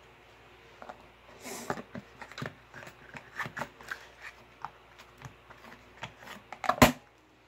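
Hands handling craft tools and a small plastic storage box on a craft table: scattered clicks, taps and rustles, with one sharp snap near the end.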